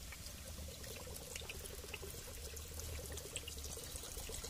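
Beer poured from a can in a steady stream into a pot of stewing beef, the liquid splashing and trickling onto the meat.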